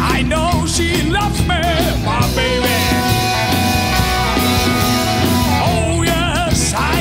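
Blues band recording with electric guitar, bass, drums and harmonica playing between sung lines.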